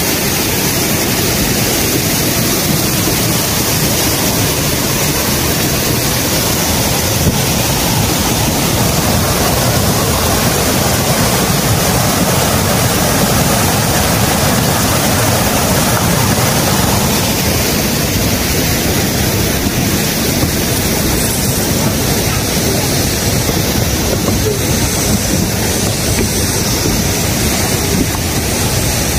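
Waterfall, its water rushing in a loud, steady, unbroken noise.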